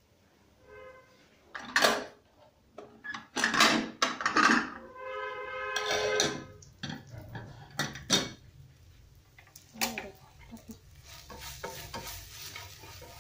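Kitchen dishes and utensils being handled: a string of sharp clinks and knocks, with a couple of short ringing tones. Near the end a faint sizzle comes from the frying pan.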